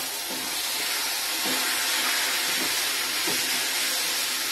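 Vegetables and thick curd sizzling in a hot non-stick kadai while being stirred with a wooden spatula: a steady hiss, with a few soft scraping strokes.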